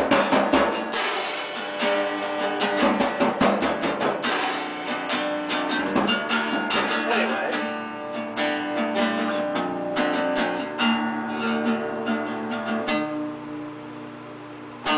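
Guitar strummed in a loose live jam, with chords ringing under a steady stream of strokes; the playing softens near the end.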